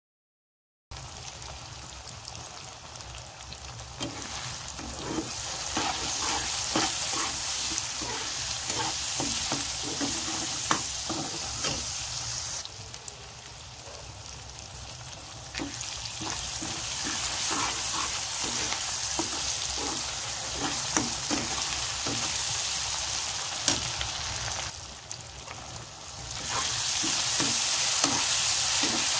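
Sliced onions sizzling in hot oil in a wok, stirred with a flat spatula that scrapes and clicks against the pan. The sizzle starts about a second in, drops back twice, and is louder near the end.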